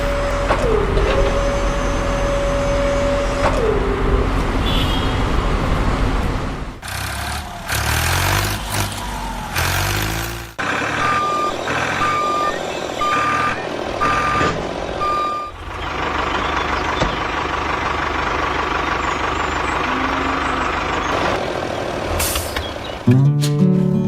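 Truck sounds: an engine running, with a run of about five or six evenly spaced reversing beeps midway. Music comes in near the end.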